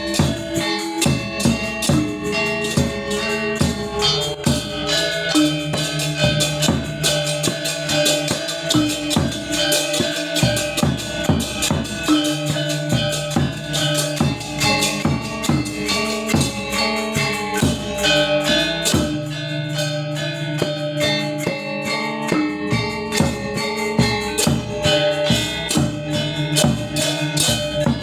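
Balinese gamelan gong ensemble playing: many bronze keyed instruments and gongs struck in a dense, steady rhythm, their notes ringing on.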